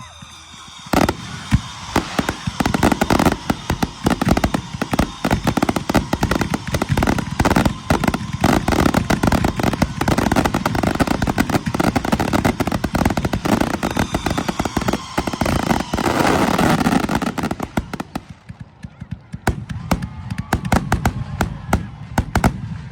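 Fireworks finale barrage: aerial shells bursting in a rapid, near-continuous string of reports for about seventeen seconds, with some whistling glides over the top. Near the end it thins out to scattered single bursts.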